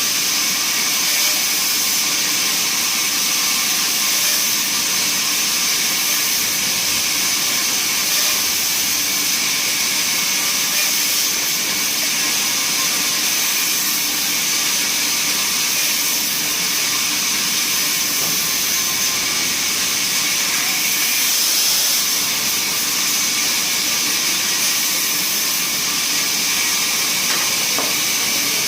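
Bandsaw running steadily while its blade cuts through a block of wood, a constant hiss with a high, even whine over it.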